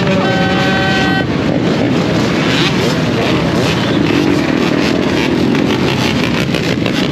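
Many dirt bike and quad engines idling and revving together in a large pack, a loud, dense mix of engine noise. A vehicle horn sounds for about a second near the start.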